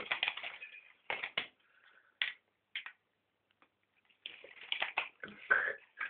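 Rainbow lorikeet bathing in a hand basin: irregular splashes in the water in short bursts, with a few brief squeaky chirps.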